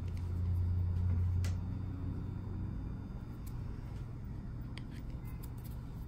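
Low steady background rumble, louder for the first second and a half, with a few faint clicks.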